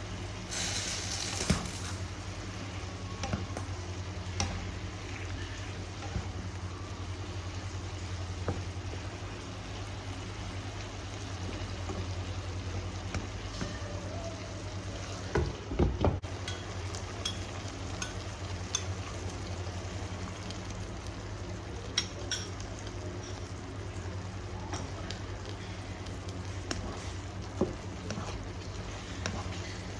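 Tomatoes and lean pork cooking in a pan, with a utensil clicking against it now and then over a steady low hum. There is a brief louder hiss about a second in and a few heavier knocks about halfway through.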